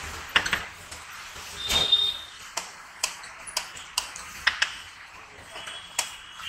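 Irregular sharp clinks and taps of steel cookware being handled, about ten in all, with a louder metallic ping that rings briefly about two seconds in, over steady street background noise.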